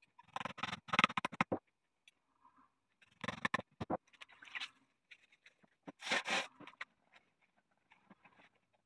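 Felt hat hood being pulled and stretched by hand during hat shaping: bursts of scratchy rubbing and crackling, the loudest in the first second and a half, with more around three and a half and six seconds in.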